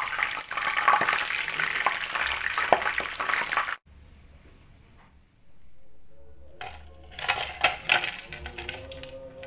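Chicken pieces sizzling in hot cooking oil in a wok while a wire spider strainer scrapes and scoops them out, now browned and cooked through. The sizzling cuts off suddenly about four seconds in. Later, a few clicks and knocks come as the fried pieces and the wire strainer are tipped onto a plate.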